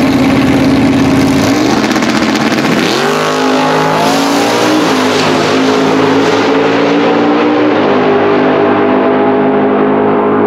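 Two drag-racing cars, one a twin-turbocharged Corvette ZR1 V8, holding steady revs on the line, then launching about two and a half seconds in. The engines rise in pitch and shift up through the gears, fading as they run away down the strip.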